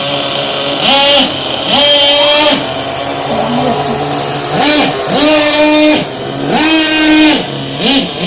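Small nitro (glow-fuel) engine of a remote-control buggy revving in short bursts, about six times: each time the pitch climbs, holds briefly and falls back.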